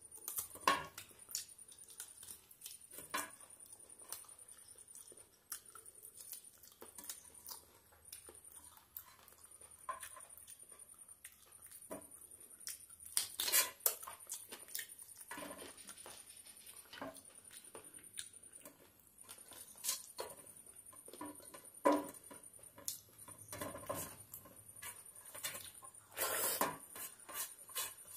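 Close-miked eating sounds: wet chewing, lip smacks and mouth clicks as a chicken leg and curried rice are eaten by hand, with fingers scraping rice across a steel plate. The sounds come in irregular bursts, loudest about halfway through and near the end.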